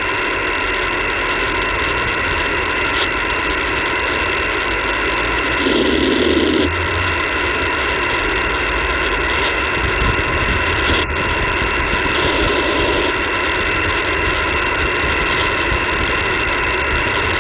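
Radio receiver hiss and static: steady band noise from an open receiver while the reply to the AI's 'over' is awaited. There is a brief low swell about six seconds in and a faint click near eleven seconds.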